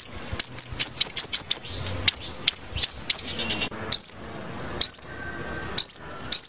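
Sunbird calling: sharp, high chips in a quick run, thinning out to three separate upswept notes about a second apart.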